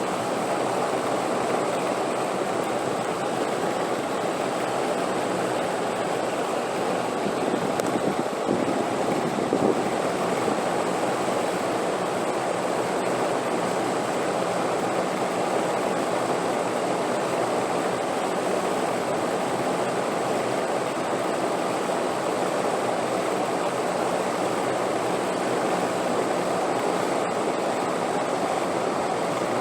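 Steady rushing wind noise, even and unbroken, with a faint thin high tone running underneath.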